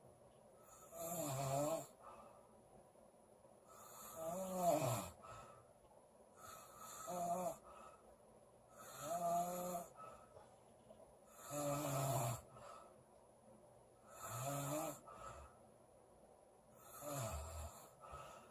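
A woman snoring in her sleep: seven snores about two and a half seconds apart, each lasting about a second, a couple of them sliding down in pitch at the end.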